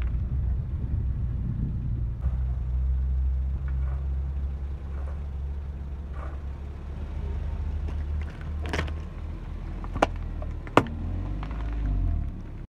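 A car's engine running at a low steady rumble as its tyre rolls slowly onto plastic popsicle moulds and a sippy cup filled with liquid. In the last few seconds the plastic gives way in three sharp cracks and snaps, the last with a short ring after it.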